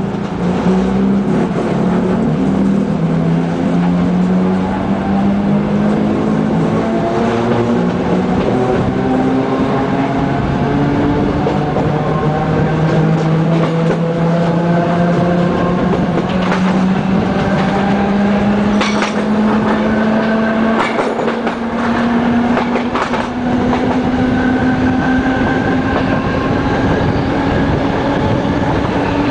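Traction motors of an SNCB 'AM Classique' electric multiple unit whining as the train pulls away and accelerates, heard from on board: the whine climbs in pitch in small steps over the first few seconds, then rises smoothly. A few sharp clicks from the wheels on the track come about two-thirds of the way through.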